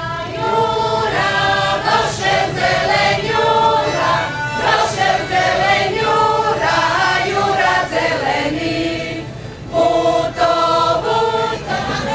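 A group of voices singing a Croatian folk song together, with a short break about three-quarters of the way through before the singing starts again.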